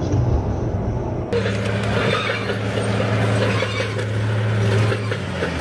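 A vehicle engine running with a steady low hum amid outdoor noise, coming in at an abrupt cut just over a second in after a low rumble.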